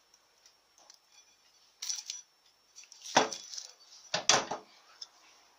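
Steel automatic-transmission clutch drum and clutch plates clinking as they are handled, with a few light clicks and then two sharper metallic knocks about three and four seconds in.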